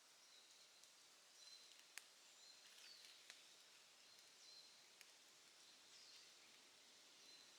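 Campfire burning quietly with a faint hiss and a few sharp crackling pops, the loudest about two seconds and five seconds in. Small birds chirp softly several times.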